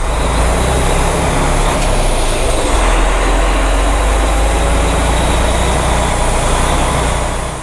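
Semi truck under way: steady engine and road noise, strong and low.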